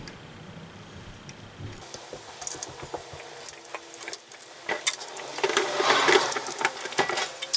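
Small metal tools and parts clinking and rattling as they are handled, sparse at first, then busiest over the last couple of seconds.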